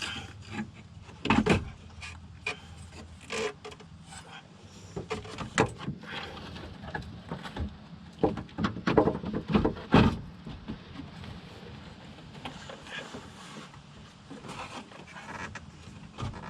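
Irregular clicks, knocks and rattles of radiator-assembly parts being handled and fitted into a car's front end, loudest about a second in and in a cluster around eight to ten seconds in.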